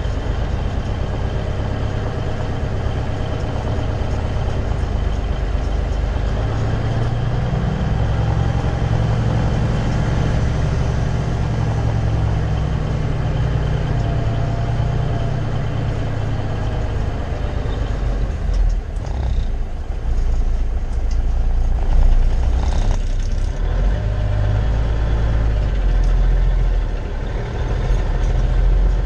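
Engine of a vintage Peterbilt 352 cabover semi, heard from inside the cab as it drives: a steady, heavy low drone. The engine note swells through the middle. About two-thirds of the way in, a few short, sharp sounds cut in.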